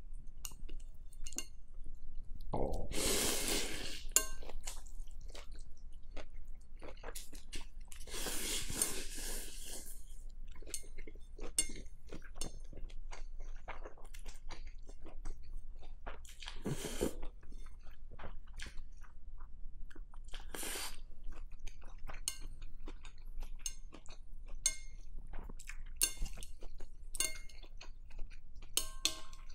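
Close-miked eating of pho: long loud slurps of rice noodles about three seconds in and again around eight to ten seconds, with shorter slurps later. Between them come chewing and light clicks of metal chopsticks against the glass bowl.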